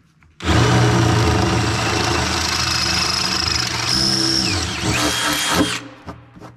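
A handheld power tool running under load on metal for about five seconds, then stopping abruptly, to remove a bolt whose nut spins free instead of unthreading.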